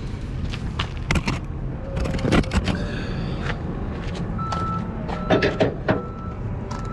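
Metal clicks and clanks of a winch bar working a flatbed trailer's strap winch as a cargo strap is loosened, over a steady low rumble. From a little past halfway, a reversing alarm beeps repeatedly.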